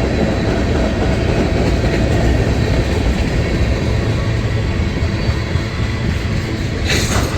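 Freight cars of a long mixed-freight train rolling past, with a steady low rumble of wheels on rail. Near the end there is a brief sharp hiss as the train's air brakes are applied.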